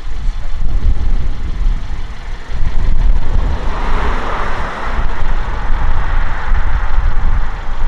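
A car driving up the road, its engine and tyre noise swelling about halfway through, over a steady low rumble.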